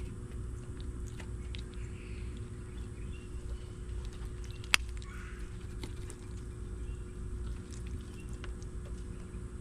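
A large reptile biting and chewing at a piece of food, heard as scattered crunches and clicks over a steady low hum, with one sharp click about halfway through.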